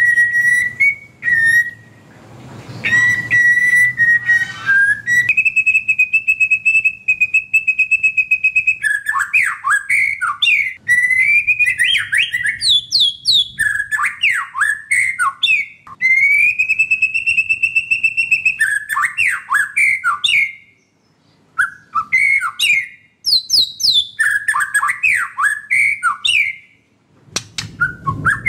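White-rumped shama (murai batu) singing: long clear whistled notes at first, then quick, varied phrases of short falling notes, broken by two brief pauses near the end.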